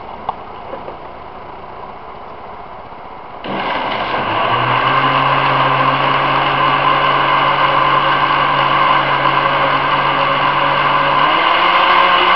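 Electric countertop blender switched on about three and a half seconds in and running steadily, blending apricots and plum pulp with water; its motor pitch steps up near the end. A small click just before it starts.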